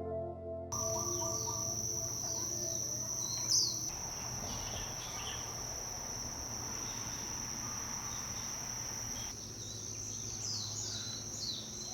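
Insects trilling in one steady high-pitched note, with scattered short bird chirps, strongest about three and a half seconds in and again near the end. A bit of music ends within the first second.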